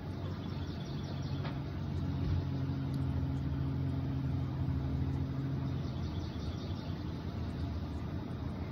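Steady low rumbling background ambience, with a low hum running through its middle part.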